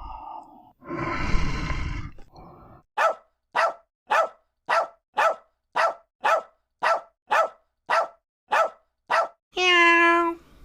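A dog barking in an even rhythm, about two barks a second, after a short rough growl-like sound. Near the end a cat gives a drawn-out meow.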